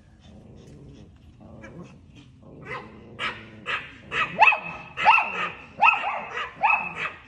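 Chihuahua barking: after a quieter start, a run of sharp, high yapping barks begins about three seconds in. They come roughly twice a second and grow louder.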